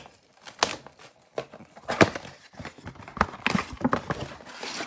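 A cardboard Mosaic baseball mega box being pulled and torn open by hand: a string of sharp taps and knocks, then a rasp of ripping cardboard near the end.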